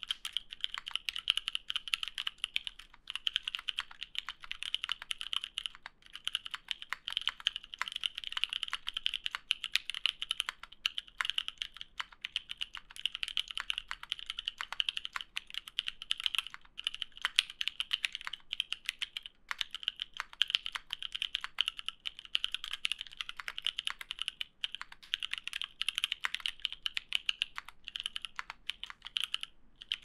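Fast continuous typing on a Duck Blackbird mechanical keyboard fitted with Krytox 105-lubed Zealios V1 62g tactile switches on a polycarbonate plate, GMK Olivia keycaps and no sound dampening: a dense stream of key clacks with brief pauses every few seconds.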